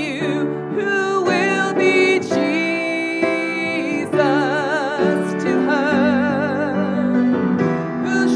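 A woman singing a gospel song with vibrato, holding long notes, as she accompanies herself on a grand piano.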